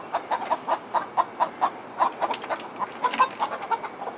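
Backyard hens clucking in a quick, even run of short clucks, about five a second, a few of them sharper and louder a little after the middle.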